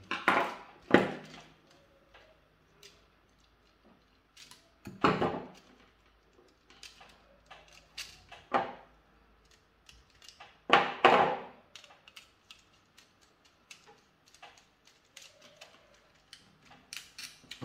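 Handling noises from wiring a plastic wall switch: scattered small clicks and taps as a screwdriver works the terminal screw and the wire is pushed in. Four louder knocks and rustles come about a second in, then at roughly 5, 8½ and 11 seconds.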